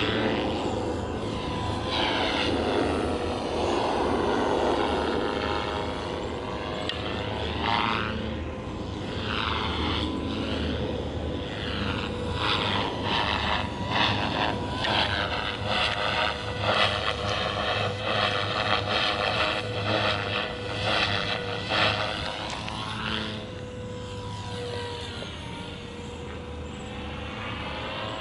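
Gaui X3 electric RC helicopter flying aerobatics: a steady whine from its motor and rotor whose tone sweeps as it moves about. From about twelve to twenty-two seconds in, the rotor blades make a rapid chopping sound.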